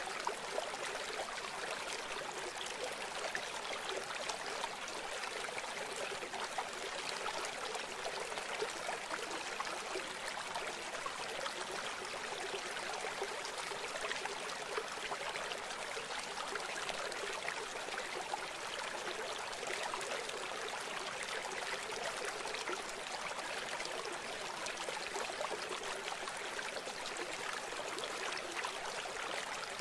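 Steady rush of running water, like a flowing stream, even throughout with no low rumble.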